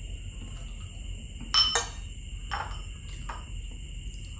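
A metal utensil clinking against a ceramic plate while eating: two quick ringing clinks about one and a half seconds in, the loudest, then a couple of softer clicks.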